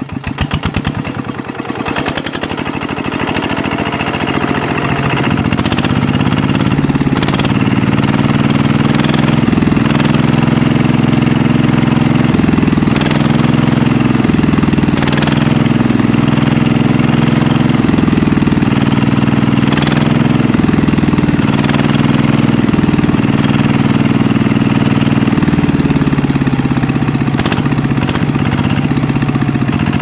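Engine running, chugging quickly at first and building to a loud, steady run by about five seconds in.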